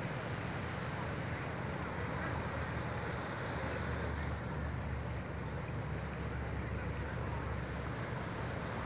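Steady seaside ambience: a low wind rumble on the microphone over the soft wash of a calm sea.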